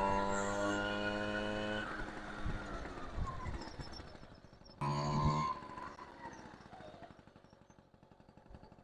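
Two-stroke engine of a 1977 Honda Express NC50 moped running at a steady pitch, then fading with a falling pitch as it moves away. A second short burst of engine sound comes about five seconds in, and the sound then dies away.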